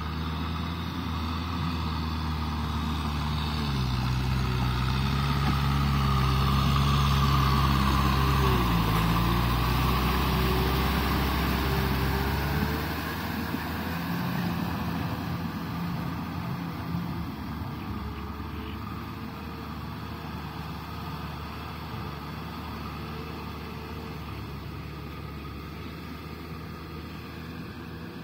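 Kubota M6040SU tractor's diesel engine running steadily under load while pulling a rotavator through wet mud. Its note is loudest in the first half and drops to a fainter, rougher running sound about twelve seconds in.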